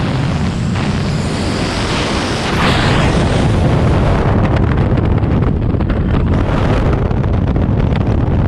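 Rushing freefall wind hitting the skydiver's camera microphone, building over the first few seconds and then steady.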